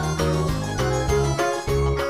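Background music: a keyboard tune with short notes in a quick, steady rhythm.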